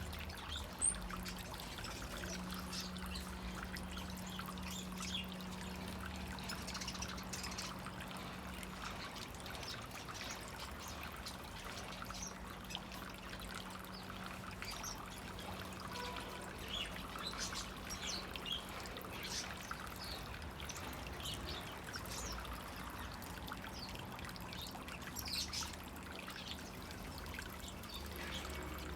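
Water steadily pouring and trickling while small exotic cage birds chirp now and then. A steady low hum runs underneath.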